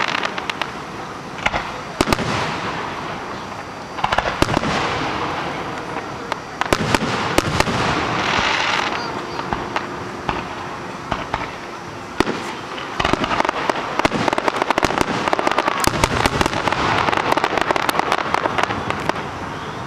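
Fireworks display: repeated sharp bangs of bursting shells, with dense stretches of crackling about four seconds in, around eight seconds, and again from about thirteen seconds nearly to the end.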